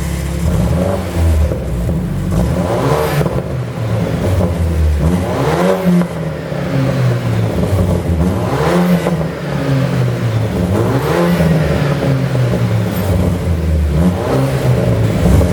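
BMW 428i's 2.0-litre turbocharged four-cylinder revved up and let fall again and again, about every two to three seconds, with sharp pops from the exhaust from a pop-and-crackle tune.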